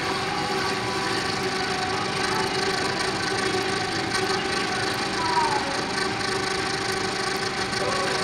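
Metal lathe running with a steady whine of several tones from its gearing while a tool bit skims the burnt copper commutator of a 3 kW DC series motor armature. Faint light ticks of the cut come through. The turning trues up and cleans the commutator's burnt surface.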